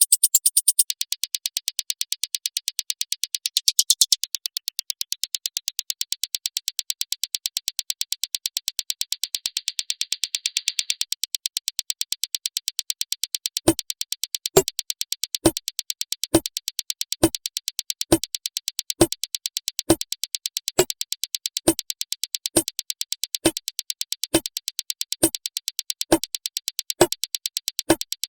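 Electronic beat loop playing back in a music production program, its sounds sampled from a single piece of audio: a rapid high ticking pattern, joined about halfway through by a low thump roughly once a second.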